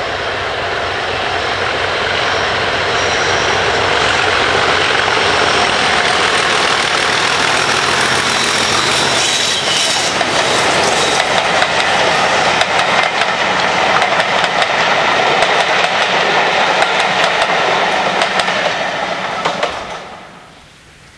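Diesel locomotive passing under power with a loaded passenger train, its engine noise building as it comes near. As the coaches go by, their wheels clatter in quick clicks over the rail joints. The sound falls away suddenly near the end.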